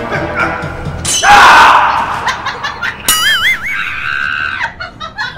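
A loud scream with a falling pitch about a second in, followed a couple of seconds later by a warbling, wobbling tone and a short held tone, like comic sound effects added in the edit.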